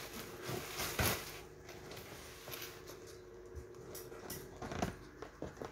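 Unpacking noises: a cardboard box and its woven plastic sack wrapping being handled, with faint rustling and two sharp knocks, about a second in and near the end.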